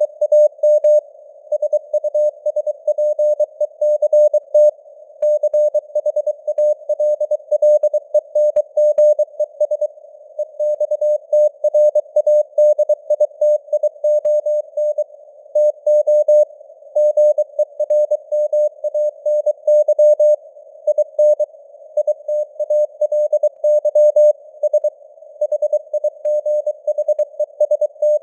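Morse code (CW) sent at 23 words per minute: a single steady mid-pitched tone keyed on and off in dots and dashes, with short gaps between words. It sits in a hiss of simulated radio noise, and its strength varies slowly as simulated fading (QSB).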